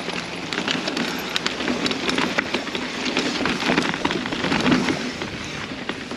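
Mountain bike rolling fast down a dirt trail: tyres crunching over gravel and dirt, with a constant rattle of clicks and knocks from the bike.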